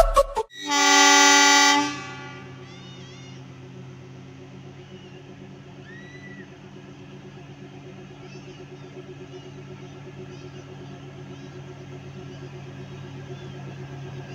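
A loud horn blast lasting about a second near the start, then the ZDM3 narrow-gauge diesel locomotive's engine running with a steady low hum. The engine grows slowly louder as the locomotive approaches. Birds chirp faintly now and then.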